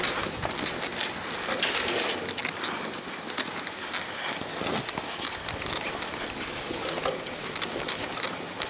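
Skis scraping and hissing over packed snow while being towed up a drag lift, with many scattered small clicks and rattles.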